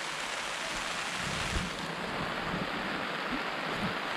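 Heavy rain falling on a tarpaulin shelter: a steady hiss that turns a little duller about two seconds in.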